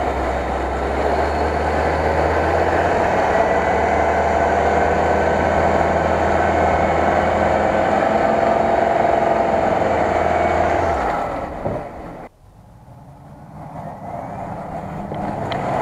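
Jeep Grand Cherokee engine running hard at high, fairly steady revs as the SUV pushes through a deep mud pit. About twelve seconds in, the sound cuts off abruptly, and a fainter engine sound builds back up toward the end.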